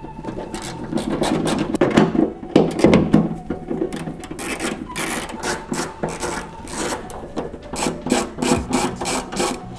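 Hand ratchet loosening 8 mm bolts, its pawl clicking in a rapid rasping run on each back-stroke, with several strokes a second.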